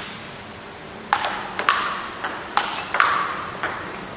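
Table tennis ball clicking back and forth in a rally, struck by bats and bouncing on the table, about two hits a second from about a second in. One side is blocking with long-pimpled rubber (Milky Way Neptune).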